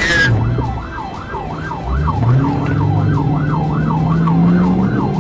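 Police car siren in a fast yelp, sweeping up and down about three times a second. Underneath, a car engine comes in about two seconds in and rises slowly in pitch as it accelerates.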